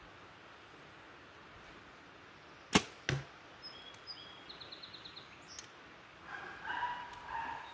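A 62-pound Hoyt Vipertec compound bow shot: a sharp, loud crack as the string is released, then a second, duller hit about a third of a second later as the arrow strikes the target.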